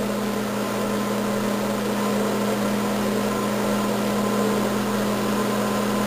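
A steady mechanical hum: a low drone with a fainter, higher tone above it.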